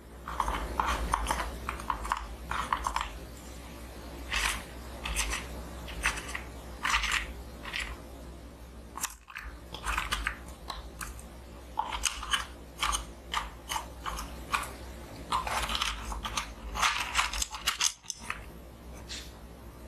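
Dried Chinese herbal ingredients rustling and crunching as a wooden spoon scoops and stirs through them in a wooden compartment box. The small crackles and clicks come in irregular spells.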